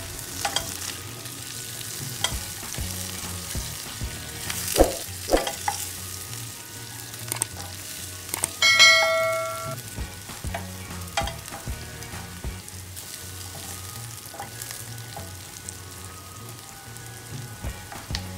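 Garlic, chillies and curry leaves sizzling in butter in a stainless steel frying pan, with a wooden spatula scraping and tapping against the pan as they are stir-fried. About nine seconds in, a bright ringing ding sounds for about a second.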